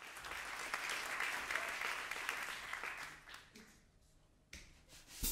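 Concert audience applauding, the clapping dying away after about three seconds into a brief hush, with a couple of short knocks near the end.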